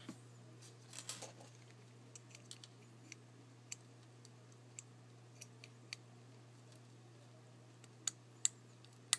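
Small sharp clicks and light scraping as a tool works at the metal case back of a pocket watch, prying it off or snapping it on. Scattered single clicks, with a short scrape about a second in and three louder clicks near the end.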